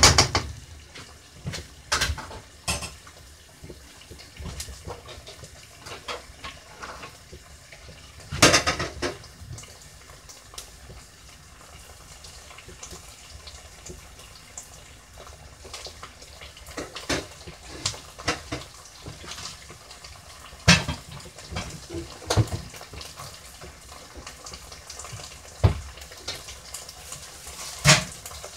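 Kitchen clatter: utensils and pans knocking and clinking every few seconds, the loudest about eight seconds in, over a low steady hiss.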